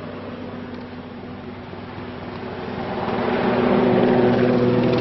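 A motor running at a steady pitch, a hum with noise that swells louder from about three seconds in.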